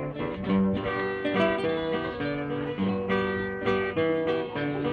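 Acoustic guitar playing an instrumental passage, mixing plucked notes with strummed chords in a steady rhythm.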